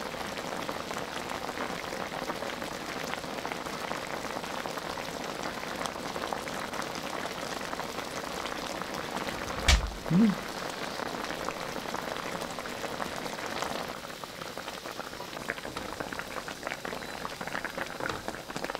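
Soy-based sauce of a pork liver steak boiling hard in a wok over a high gas flame: a steady crackling bubbling. About halfway through there is a single sharp thump.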